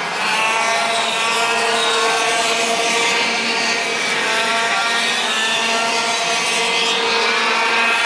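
Several racing kart engines, 125 cc two-stroke ROK engines, running hard as the karts lap the circuit. Several overlapping engine whines rise and fall in pitch as the drivers work through the corners.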